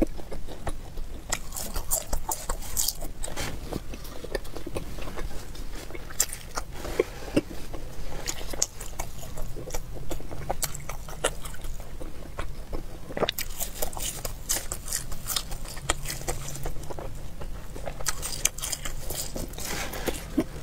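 Close-miked chewing and biting of latiao, spicy gluten snack strips, with bunches of sharp mouth clicks now and then.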